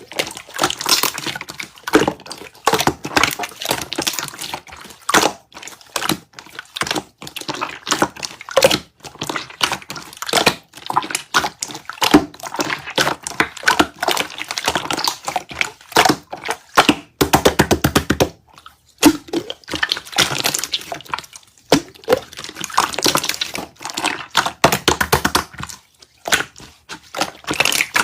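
Slime being worked by hand: a dense, irregular run of sticky clicks, pops and squishes.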